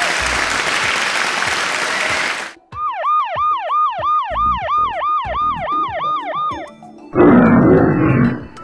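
A run of phone sound-effect tones. First comes a dense burst of noise, then an electronic siren-like wail that swoops about three times a second for some four seconds, then a loud roar near the end.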